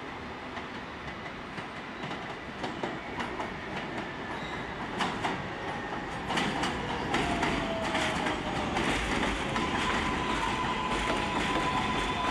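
R142A subway train approaching and running into the station, its wheels clacking over rail joints, louder from about six seconds in. A tone falls in pitch, then a steady high whine holds near the end.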